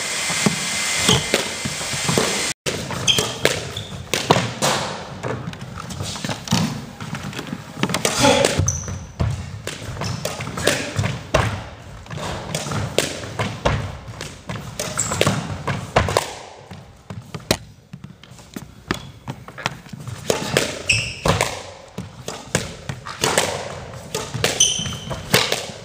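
Squash rally: sharp, irregularly spaced cracks of racket strikes and the ball hitting the front wall and floor, with short high squeaks of shoes on the court floor.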